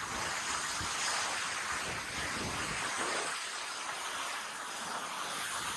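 Fast mountain river rushing over rocks: a steady hiss of white water.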